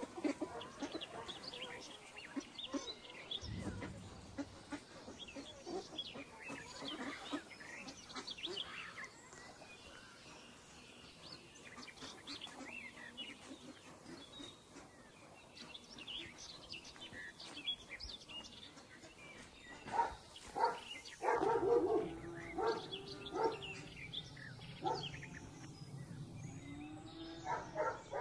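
Birds chirping in many short calls, with a louder, lower animal call a little after twenty seconds in.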